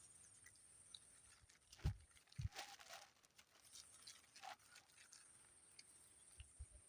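Near silence, with a faint steady high-pitched whine and a few faint, short knocks.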